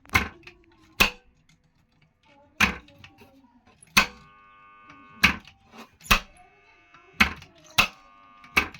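A series of sharp knocks, roughly one a second, with a steady multi-toned hum for a few seconds in the middle.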